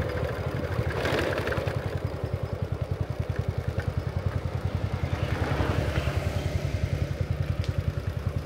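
A small engine running steadily, with an even low putter of about ten pulses a second.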